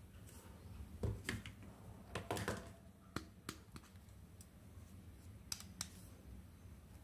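Light, irregular clicks and taps of small plastic toy pieces being handled, with the loudest clusters about a second and about two and a half seconds in, then a few single clicks.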